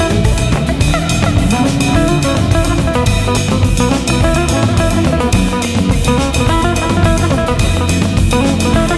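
Background music: a rock track with drum kit and guitar, played instrumentally with a steady beat.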